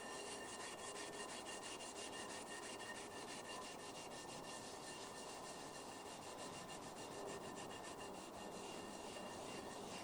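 Wire brush scrubbing rust off the raised cast lettering of a rusted cast iron pan: a steady scratching made of rapid, even strokes.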